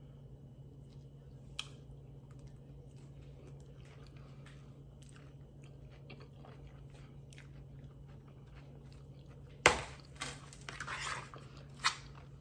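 A person quietly chewing a mouthful of lettuce salad, with many faint crunches and small clicks. About three-quarters of the way through there is a sharp knock, then a second or so of louder rustling and clatter, and another click near the end.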